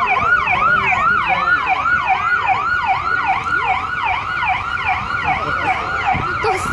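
Ambulance electronic siren on yelp: a fast rising-and-falling wail, about three sweeps a second.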